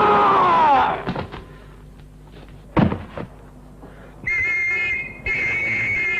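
Eerie film-score music slides down in pitch and dies away, then a single sudden thud a little under halfway through. Near the end a steady high-pitched whistle sounds in two long blasts.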